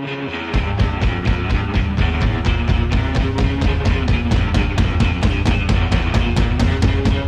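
Rock music: a guitar intro, joined about half a second in by a full band with a fast, steady drum beat.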